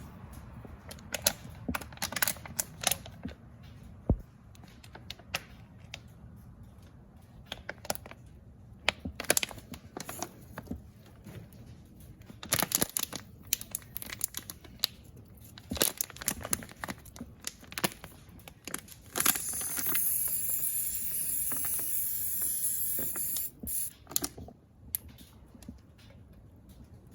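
Irregular clicks, crackles and short hissing squirts from soapy water being sprayed over automotive A/C line fittings to check for refrigerant leaks, with a steady hiss lasting about five seconds near the end.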